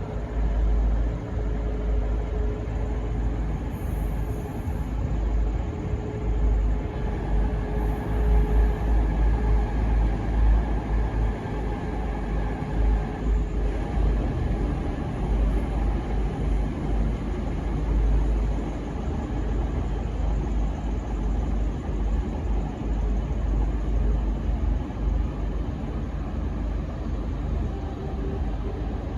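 V/Line N class diesel-electric locomotive and its train running into a station: a continuous heavy low rumble with a steady noisy haze, and faint held tones that come and go in the first half.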